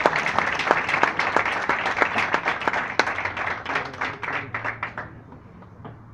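Audience applauding with many hands clapping; the clapping thins out and stops about five seconds in.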